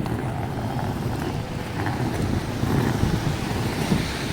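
Street noise outdoors: a steady rumble of passing traffic, with wind buffeting the microphone.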